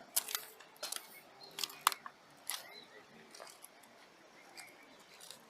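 Several sharp clicks and knocks in the first two and a half seconds, then a few faint ticks.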